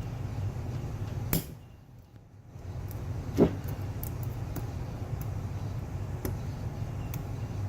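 Sharp clicks and scrapes of a small tool working at the retaining clip inside a Subaru SVX power steering pump, the loudest click about three and a half seconds in, with fainter ticks after, over a steady low hum.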